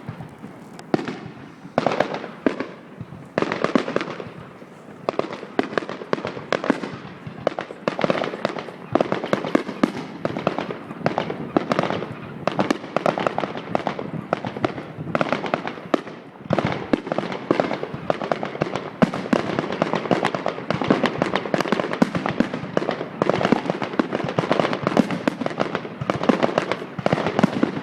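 Fireworks display: a dense, continuous barrage of shell bursts, bangs and crackling, with a brief lull a little past the middle.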